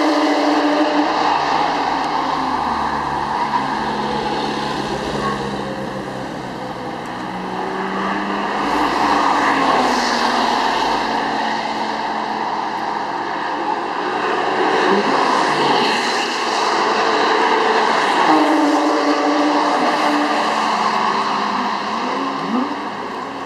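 Sports car engine running hard on a race track, its note rising and falling with throttle and gear changes.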